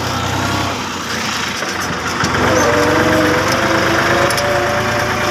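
Farm tractor's diesel engine running steadily while it pulls a trailer loaded with soil. A wavering pitched sound comes in over the engine a couple of seconds in.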